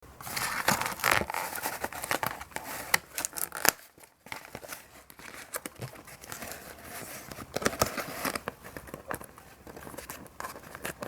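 Crinkling, rustling and sharp clicks of a boxed doll's plastic and cardboard packaging being handled as its twist ties are worked loose, with a brief pause about four seconds in.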